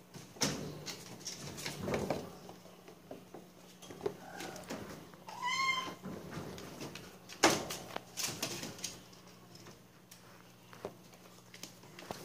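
A kitten mews: a short faint call about four seconds in, then one clearer high meow about a second later. Knocks and scuffs of kittens moving about on the cage's plastic floor tray and wire sides, the loudest about seven and a half seconds in, over a steady low hum.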